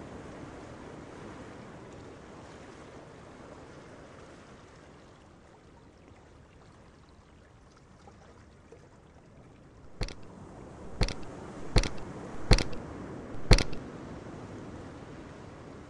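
Ocean surf ambience, a low even wash that fades down, then five sharp knocks about a second apart near the end, the last one the loudest.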